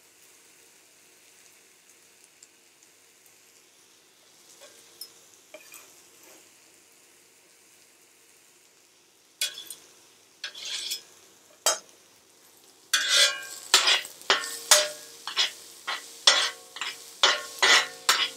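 Onions frying in a pan with a faint sizzle, with a few light knife taps on a wooden cutting board. From about 13 seconds in, a metal utensil knocks and scrapes against the pan as the onions are stirred: repeated loud clanks, roughly two a second, with a ringing tone.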